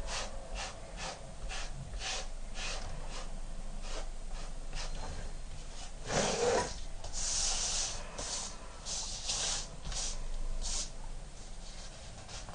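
Rhythmic hand rubbing strokes on a wooden board, about two to three a second, growing louder and longer a little past the middle.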